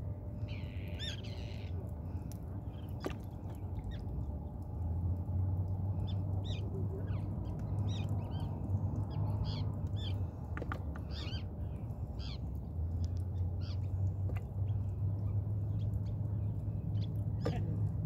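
Birds calling, many short high calls one after another, over a steady low rumble that gets louder about five seconds in.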